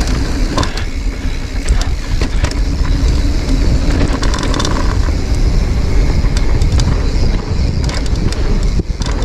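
Giant Reign mountain bike descending a rough trail: wind rumbling on the microphone, tyres rolling over dirt and rock, and the bike rattling with frequent sharp knocks.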